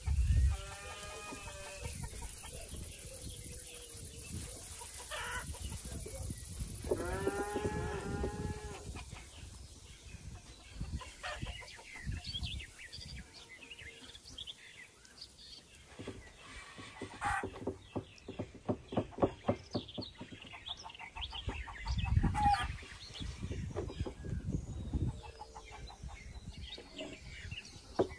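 Farmyard chickens: a rooster crows at the very start and again, long and clear, about seven seconds in, while hens cluck in short irregular calls through the rest.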